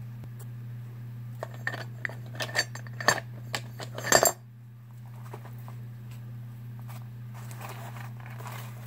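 Metal chain strap and clasps of a handbag clinking and rattling as the bag is handled, a quick run of small clinks for about three seconds that stops abruptly, over a steady low hum.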